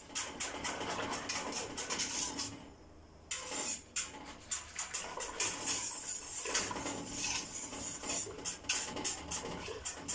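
Wire whisk stirring custard in a stainless steel pot, with quick clicking and scraping of the metal wires against the pot's sides and bottom and a short pause about two and a half seconds in.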